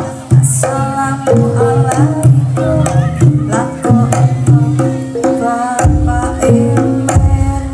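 Live Javanese gamelan music: hand-drum strokes in a quick rhythm under a melody of sharply struck pitched notes. A heavy low rumble joins in about six seconds in.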